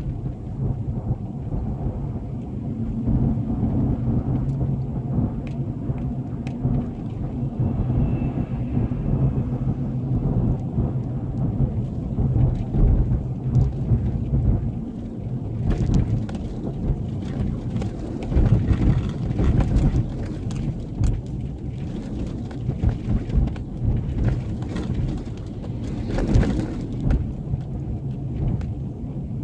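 Car cabin road noise on a rough gravel and mud road: a constant low rumble of tyres on the loose, rutted surface with scattered knocks and rattles, and a steady low drone in the first half. The rumble gets rougher and brighter from about halfway through.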